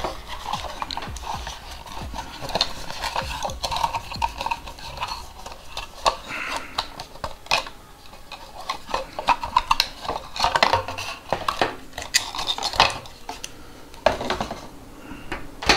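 Cardboard packaging and plastic being handled: irregular rustling, scraping and knocks as a battery charger in its cardboard insert and its coiled cables are lifted out of the box.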